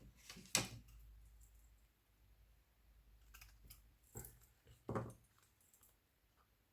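Washi tape and a paper tag being handled: a handful of short clicks and rustles, the loudest about half a second in and another near five seconds.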